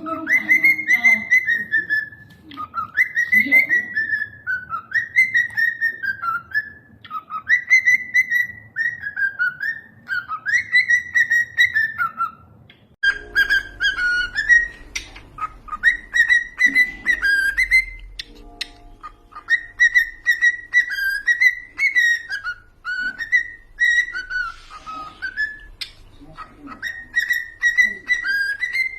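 Cockatiel whistling a tune: clear, pitched whistled phrases about a second long, rising and falling, repeated one after another.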